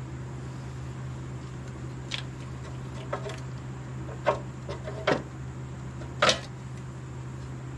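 A handful of short metal clanks and clicks from tools and engine parts being handled, the loudest two a couple of seconds apart, over a steady low hum.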